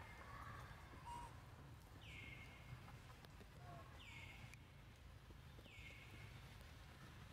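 Faint high animal call repeated three times, about every two seconds; each call drops in pitch and then holds a steady note for a moment.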